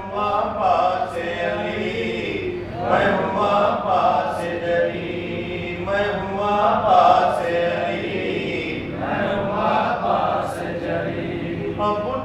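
A man's voice chanting a devotional poem through a microphone, in long, drawn-out melodic phrases of a few seconds each.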